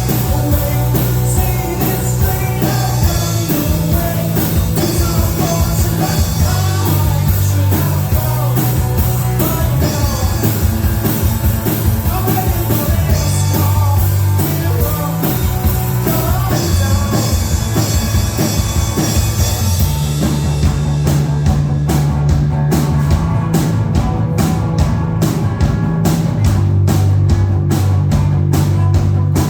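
Rock band playing live, with singing at times. About twenty seconds in, the drums come forward with a steady beat.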